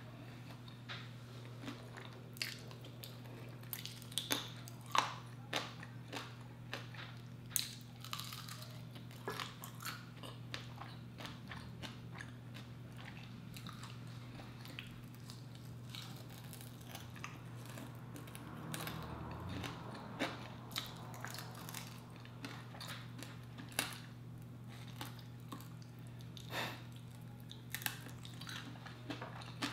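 Close-up eating sounds: biting and chewing chicken wings, with irregular sharp mouth clicks throughout, over a steady low hum.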